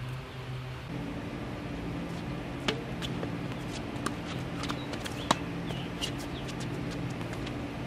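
Tennis rally on a hard court: sharp pops of the ball coming off the racket strings, the first about two and a half seconds in, then every second or so, the loudest about five seconds in. A steady low hum runs underneath.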